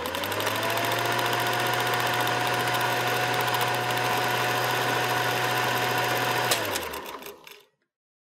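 Whirring, motor-like sound effect for a spinning logo intro: it starts with a click, spins up with a tone rising over the first half second, runs steadily with a low hum, then winds down about six and a half seconds in and fades out.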